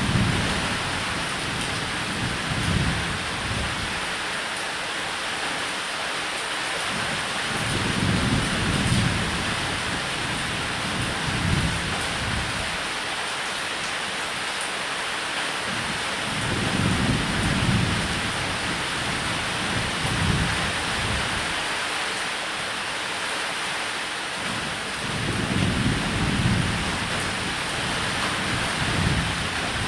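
Steady, heavy rain hiss with low rolling thunder that swells and fades four times, about every eight seconds.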